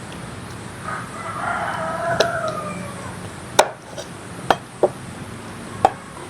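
A rooster crows once, a drawn-out call of about two seconds that falls off at the end. Around and after it come a handful of sharp, separate knocks of chopping.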